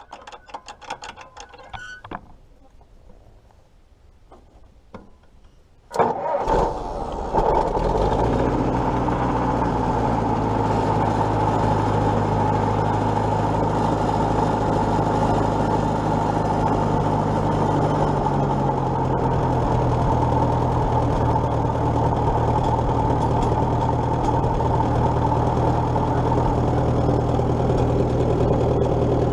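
1941 Case SC tractor's four-cylinder engine starting: a few light clicks and rattles of the controls, then the engine fires about six seconds in, catches within a second or two and runs on steadily at idle, its pitch settling slightly lower about midway.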